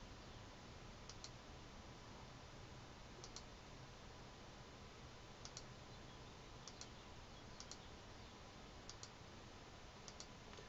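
Faint computer mouse clicks over near-silent room tone: about eight quick double clicks at irregular intervals.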